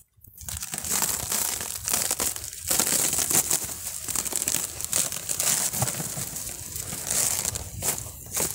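The white cover sheet over a beehive's frames is peeled back by hand, crinkling and rustling with a dense run of small crackles.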